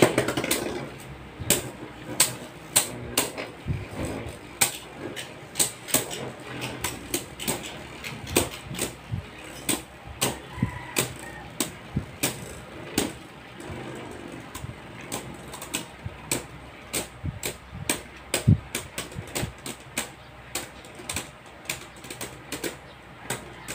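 Two Beyblade spinning tops battling in a plastic stadium: sharp, irregular clicks and clacks as they strike each other and the stadium wall, a few each second, over a faint whir of spinning.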